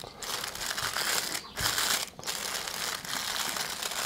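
Plastic roasting-sleeve film crinkling as it is rolled tightly around a sausage of mince, with two brief pauses, about one and a half and two seconds in.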